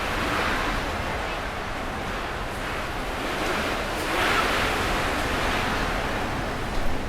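Strong Levante wind rushing and buffeting the microphone. It swells in a gust about four seconds in, and there is a brief thump near the end.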